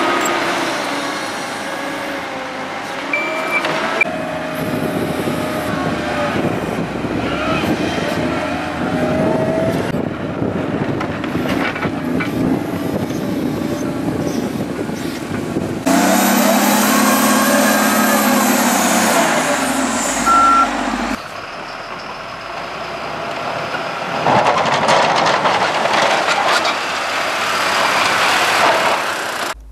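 Diesel engines of heavy snow-clearing machines (a backhoe loader, a wheel loader and a plough truck) running under load as they push snow. The sound changes abruptly several times, and a reversing beep sounds briefly a couple of times.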